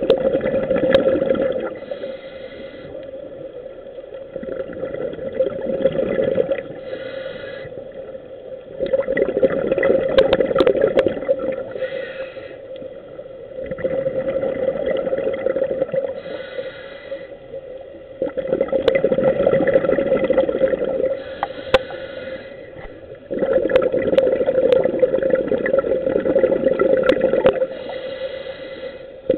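Scuba diver breathing through a regulator underwater: a short hiss at each inhale, then a longer burst of exhaled bubbles, in a cycle of about five seconds that repeats about six times. A steady hum runs underneath.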